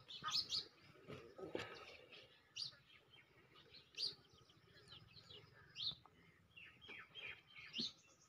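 Small birds chirping faintly, with short, high, falling chirps every second or two.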